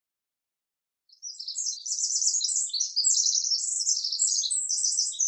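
High-pitched, rapid chirping like a songbird's, starting about a second in after silence and running on without a break.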